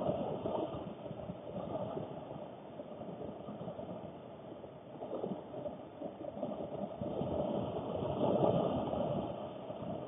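Heavy rain beating on a car's roof and rear window, heard through a dashcam microphone inside the car, surging and easing and heaviest about eight seconds in.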